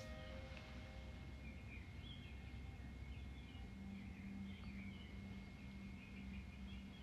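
A faint ringing tone dies away in the first second. After that there is only low background with scattered faint high chirps and a soft low hum that starts pulsing partway through.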